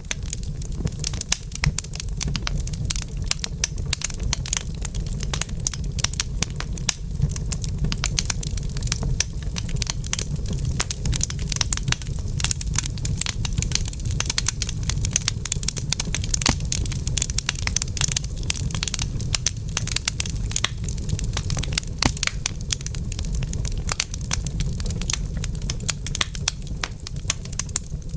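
Wood fire burning in a fireplace, crackling constantly with many small irregular pops over a low steady rumble.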